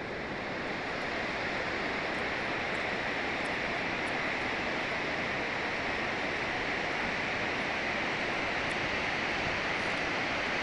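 Water rushing down a hydroelectric dam's concrete spillway chute, a steady, unbroken rush of white water.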